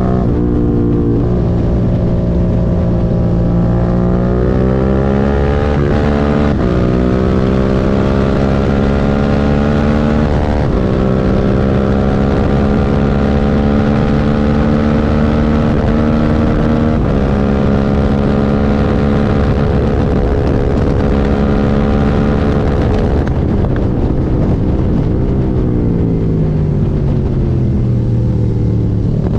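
Suzuki SV650's 90-degree V-twin engine running hard under load, its pitch climbing slowly and then dropping sharply about five times as it shifts up through the gears. Near the end the pitch falls away steadily as it slows, then starts rising again.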